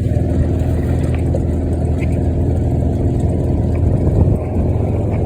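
Side-by-side utility vehicle's engine running steadily while it drives along, heard from inside the vehicle.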